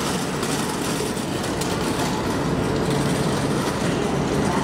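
Steady rumble and hum of Shinkansen trains standing at the platform, with no distinct clicks or changes.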